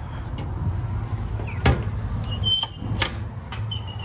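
Metal compartment doors on a service truck body being handled: clicks of the stainless paddle latches and two sharp metal clunks about 1.7 s and 3 s in, over a low steady hum.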